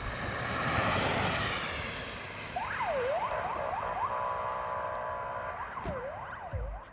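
Emergency vehicle's electronic siren sweeping rapidly up and down in short whoops, broken by a steady horn tone lasting about a second and a half, then sweeping again. The first couple of seconds hold only road noise before the siren comes in.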